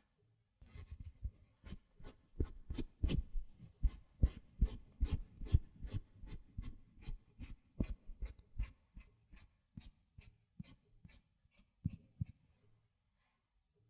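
Hair-cutting scissors snipping close to a binaural microphone, a steady run of short crisp snips about two or three a second that grow sparser near the end.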